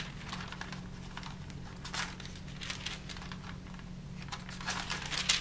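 Sheet of tracing paper rustling and crinkling in short, scattered bursts as it is lifted and laid back over fabric, with a steady low hum underneath.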